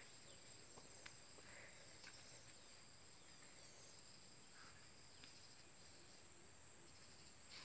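Faint, steady high-pitched trilling of insects in the field, with a few soft clicks.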